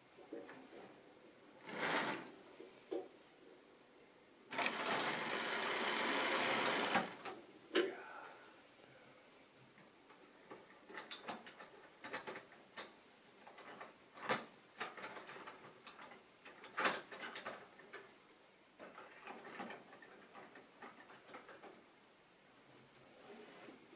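A model Class 47 diesel locomotive's small electric motor and wheels running along the track for about two seconds, about five seconds in. Through the rest come scattered plastic clicks and light knocks of model rolling stock being handled and set on the rails.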